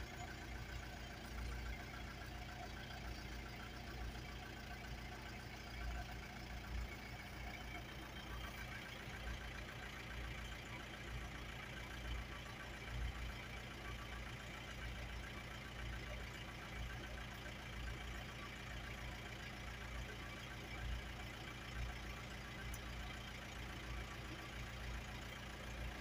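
Safari jeep's engine idling steadily, a constant low rumble.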